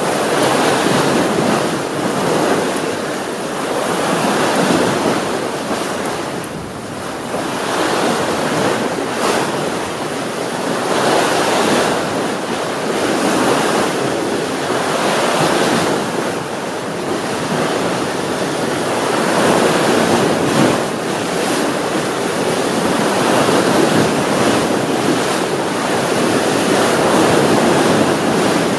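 Sea waves washing onto the shore: a continuous rush of surf that swells and eases every few seconds.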